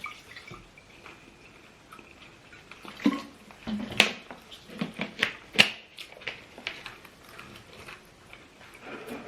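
Eating sounds at a meal: scattered sharp clicks and smacks, the clearest about three, four and five and a half seconds in, with a few short low murmurs in between.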